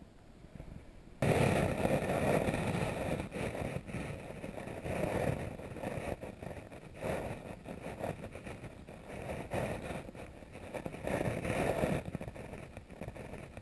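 Muffled underwater rumble picked up through a GoPro's waterproof housing. It starts abruptly about a second in and swells and fades unevenly.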